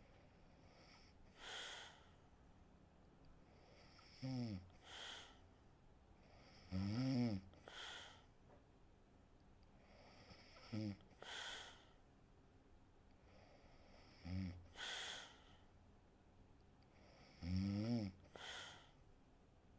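A woman snoring in deep sleep: five low snores about every three and a half seconds, each followed by a breathy rush of air, with one lone breath about a second and a half in.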